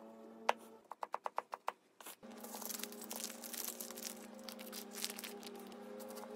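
A chef's knife chopping mushrooms on a plastic cutting board in a quick run of about seven strokes, then plastic packaging crinkling as the knife cuts through a pack of turkey bacon. Soft background music plays under it.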